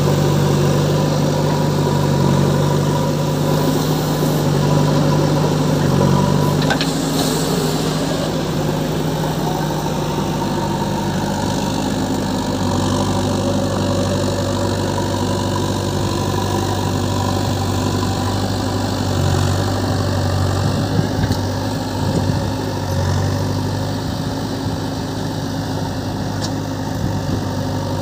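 Diesel engines of a JCB backhoe loader and a John Deere tractor running steadily at a low, even note. The engine tone shifts lower about halfway through.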